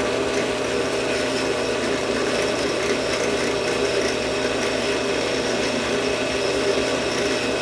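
Drill press running steadily with a small diamond bit in its chuck, grinding at the edges of the valve hole in a tiny model-engine piston held against it by hand.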